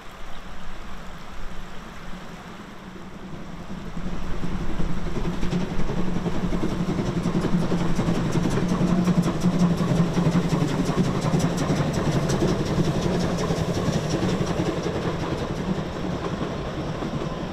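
Narrow-gauge steam train crossing a stone viaduct: the locomotive and its carriages make a steady rumble that grows louder about four seconds in.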